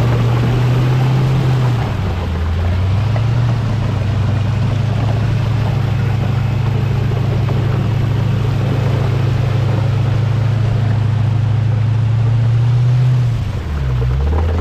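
Off-road vehicle engine running steadily, its note dropping and rising again about two seconds in and once more near the end.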